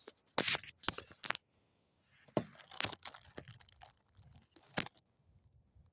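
Handling noise: a string of irregular sharp clicks and knocks with rustling, about six distinct knocks in the first five seconds, as gear is handled.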